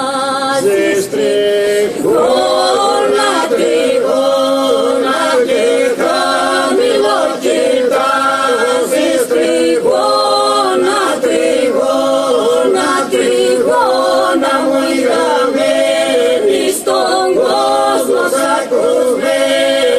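Epirote polyphonic song sung a cappella by a mixed group of men and women: a winding, ornamented melody carried over a steady drone held by the group.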